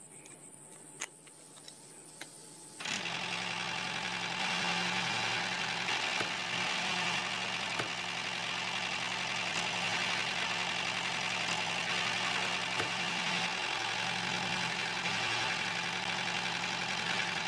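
Small electric motor and gears of a miniature DIY model tractor whirring steadily as it drives and tows a toy seed drill, starting about three seconds in after a faint click.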